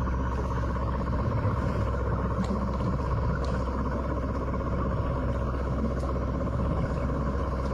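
Steady low rumble of water noise picked up by a submerged camera on a deep-sea dive, with a few faint clicks.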